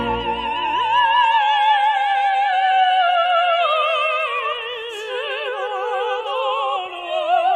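Operatic soprano singing with wide vibrato, her line slowly falling, joined by a tenor about halfway through in a love duet.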